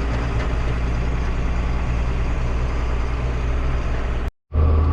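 John Deere 7800 tractor's six-cylinder diesel engine running steadily under way, a continuous low drone. About four seconds in the sound cuts out completely for a moment, then returns as a deeper, louder hum.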